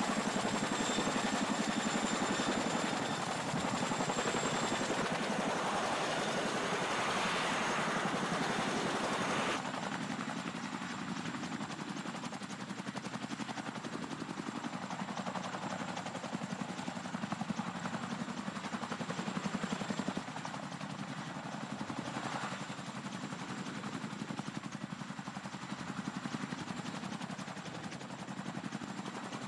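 CH-47 Chinook tandem-rotor helicopter hovering low overhead, its rotors beating in a fast, steady chop. The sound shifts abruptly about ten seconds in.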